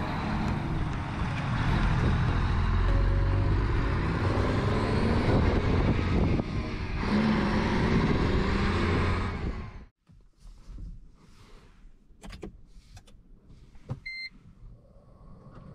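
Diesel semi-truck tractor unit running loud as it pulls away down the road, cutting off abruptly about ten seconds in. Then, inside a Toyota Prius, a few soft clicks and one short electronic beep from the car while the shift selector is worked.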